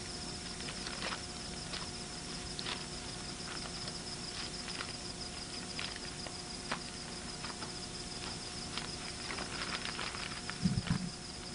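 Night insects chirring steadily in a high, fast-pulsing trill, with scattered small clicks and knocks and a couple of dull thumps near the end.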